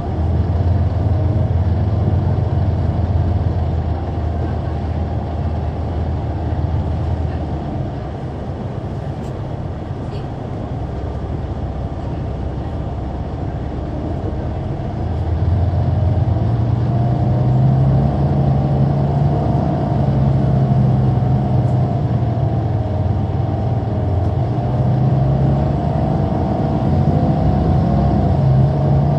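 Caterpillar C9 ACERT diesel of a 2004 Neoplan AN459 articulated bus, with its ZF Ecomat automatic gearbox, heard from on board: the engine pulls, eases off for several seconds around the middle, then pulls harder again with its pitch climbing in steps as the bus accelerates through the gears. A steady higher howl runs over the engine note.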